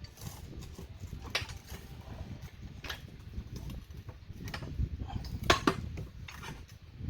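Pry bar and the tire changer's duckbill bar knocking and scraping against an ATV wheel rim as the tire bead is worked off. There are scattered sharp metal knocks, the loudest a little past halfway, over a low rumble of handling noise.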